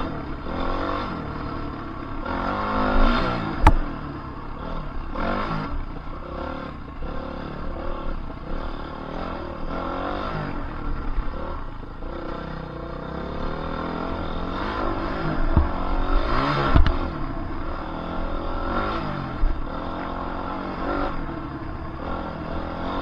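Dirt bike engine under riding load, its pitch rising and falling again and again as the throttle opens and shuts through turns. A few sharp knocks sound as the bike hits bumps on the rough track.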